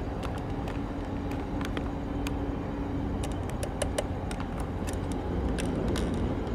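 A steady low background rumble with a faint steady hum that stops about halfway through, and scattered sharp ticks throughout.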